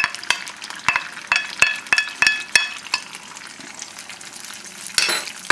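Beaten eggs sizzling as they go into hot butter and oil in a non-stick skillet. Over the sizzle, a wooden spatula scrapes the egg off a ceramic plate with a quick run of clicks and taps, a few of them ringing briefly. A louder scrape comes near the end.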